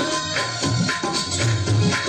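Music for a mujra dance, with a rhythmic drum beat of several strokes a second under held melodic tones.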